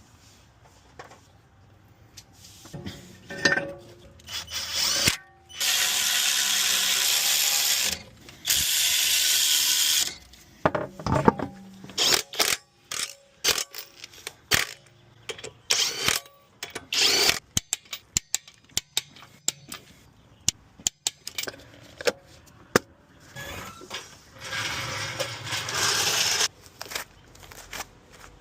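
Power tool running in three bursts of about two seconds each, two close together and one near the end, with many sharp clicks and knocks of tools on metal in between.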